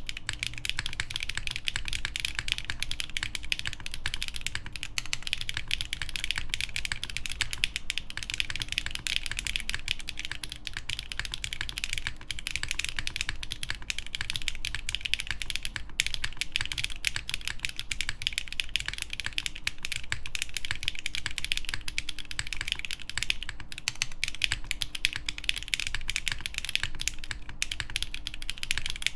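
Continuous fast typing on a mechanical keyboard with HMX Sunset Gleam linear switches on a polycarbonate plate and GMK keycaps: a dense, even stream of key clacks.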